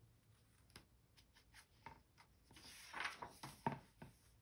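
Faint paper rustle of a picture book's page being turned, starting about two and a half seconds in, after a few soft ticks.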